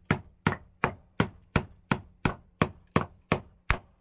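Claw hammer driving a nail into a wooden beam overhead: eleven sharp, evenly spaced blows, about three a second.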